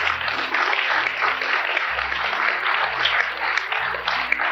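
A large audience applauding: many people clapping at once in a dense, steady patter.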